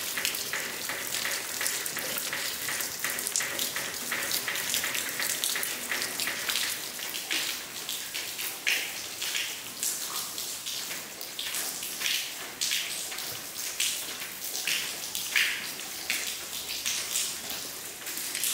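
Rainwater leaking through the damaged ceiling, dripping and splattering onto a wet floor in many separate drops over a steady hiss of rain.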